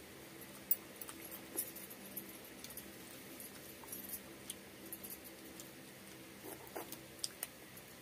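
Eating rice by hand from a banana leaf: fingers mixing rice and curry and mouths chewing, with scattered small clicks and jingles from glass and metal bangles on the wrist.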